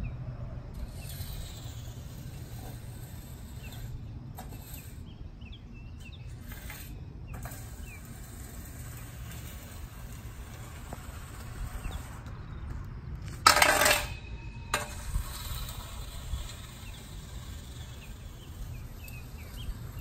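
A 36-inch landscape rake's tines scraping and rattling as it is pushed and pulled through top dressing on a lawn. About two-thirds of the way through there is one louder scrape lasting about a second.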